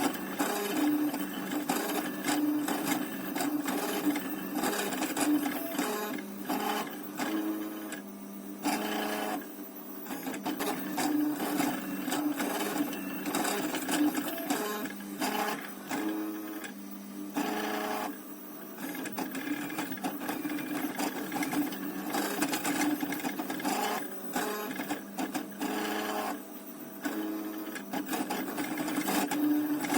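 Stepper motors of a homemade 3D printer built from old CD-drive mechanisms, buzzing in short moves whose pitch keeps shifting, with a few brief pauses.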